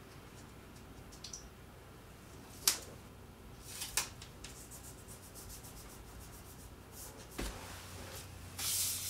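Black tape and a paper photo print being handled and taped to a wall: a few sharp clicks and taps, the loudest about a third of the way in, and a short rasp of tape pulled or torn near the end.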